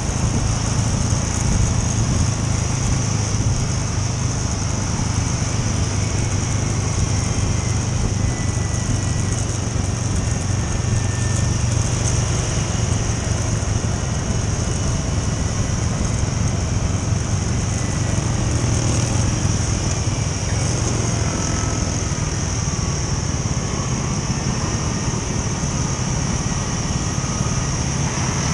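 Scooter engine running steadily under way, with a constant low hum and wind and road noise over it.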